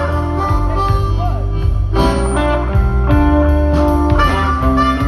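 Live blues band playing: amplified blues harp (harmonica) held notes over electric bass, electric guitar and drums with a steady beat.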